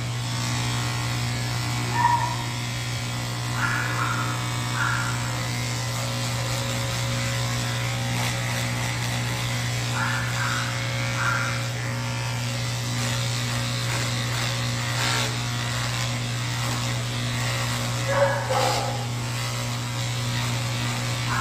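Electric pet clipper running with a steady hum as it shaves a matted cat's coat down to the skin. A few short higher-pitched sounds stand out over the hum, the loudest about two seconds in and near the end.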